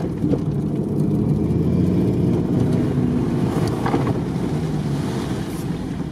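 Car engine running while the car drives through deep floodwater, with water rushing and sloshing under and around it, heard from inside the cabin. About four seconds in, a wave of water splashes over the windshield.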